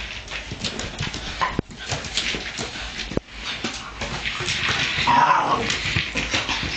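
Small dog whining briefly, once about one and a half seconds in and again more strongly about five seconds in. Constant clicking and scraping runs underneath as it plays with a treat-dispensing ball.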